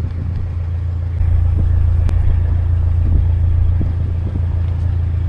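Narrowboat's diesel engine running steadily with a low, even throb, with a single sharp click about two seconds in.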